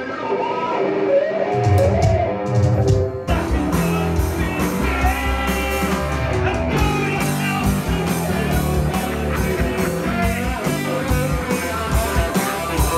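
Electric guitar playing, then about three seconds in the sound changes abruptly to a band playing rock, guitars with a drum kit.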